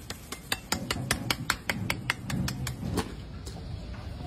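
Knife blade tapping the crisp, hard-roasted skin of a whole roast pig (babi guling) in quick, even knocks about five a second, which shows how crunchy the skin is. The knocks stop suddenly about three seconds in.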